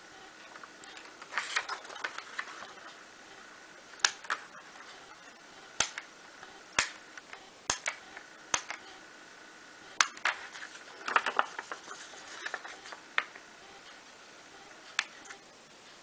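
Fine-pointed parchment-craft scissors snipping through perforated parchment paper: sharp, irregular clicks, some single and some in quick clusters.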